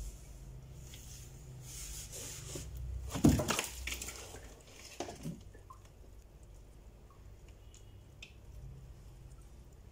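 Handling noise: rustling that builds to a sharp clatter about three seconds in, a couple of softer knocks a second or two later, then only faint clicks.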